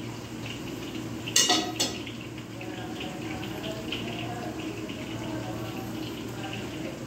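Kitchenware clinking: two sharp clatters close together about a second and a half in, over a steady low hum.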